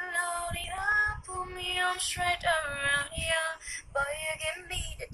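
A woman singing a slow melody with long held notes.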